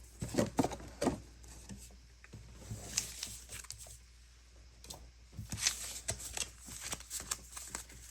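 Pokémon trading cards and their plastic sleeves and packaging being handled: irregular light clicks and rustles, busiest in the first second and again from about five and a half seconds in.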